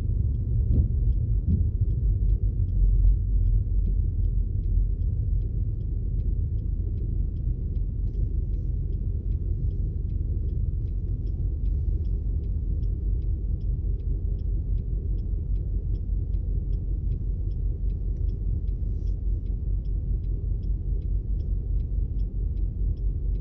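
Steady low rumble of a car driving at road speed, heard from inside the cabin, with a faint regular ticking from about a third of the way in.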